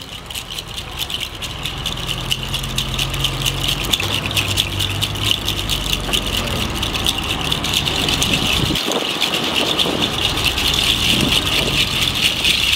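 Ceremonial hand rattles shaken rapidly and without pause, a dense clattering. A low steady hum sits underneath and drops away about two-thirds of the way in.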